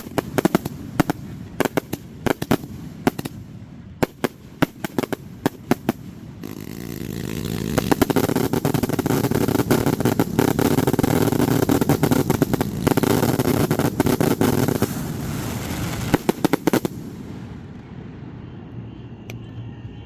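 Aerial fireworks exploding: sharp separate bangs in quick succession, then from about six seconds in a dense, unbroken barrage of bangs and crackle lasting about ten seconds, the show's finale, which stops suddenly.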